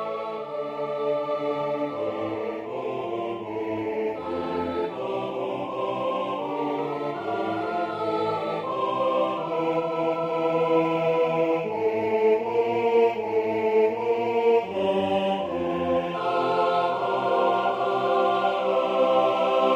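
Eight-part choir singing a slow Latin motet without accompaniment: sustained chords that change every second or so, growing louder toward the end.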